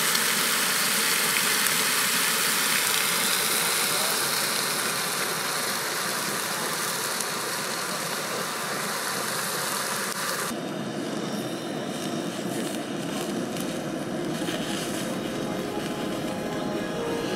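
Bacon sizzling on a griddle over a Primus propane camp stove, a steady hiss. About ten seconds in it cuts abruptly to a lower, duller steady rumble from the camp stove burner heating an enamel percolator coffee pot.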